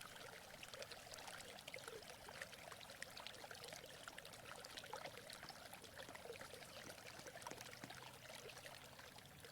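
Faint running water of a small stream: a steady trickle with many small splashes.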